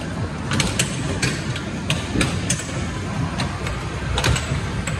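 Arcade din: a steady low rumble of machines and room noise, with many sharp clicks and clacks scattered irregularly through it.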